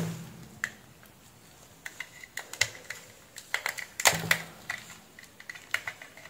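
Scattered light clicks and rattles of a bundle of plastic DC barrel-plug adapter tips being handled and tried against an epilator's power socket, with a cluster of louder clicks about four seconds in.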